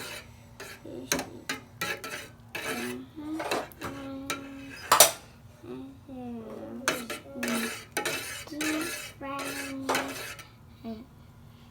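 A spoon stirring agar jelly mixture in a pot while it cooks, with repeated clinks and scraping against the pot's sides.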